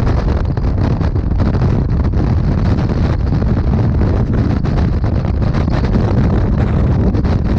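Wind buffeting the microphone of a motorcycle at highway speed: a loud, steady rush, heaviest in the deep rumble and fluttering rapidly.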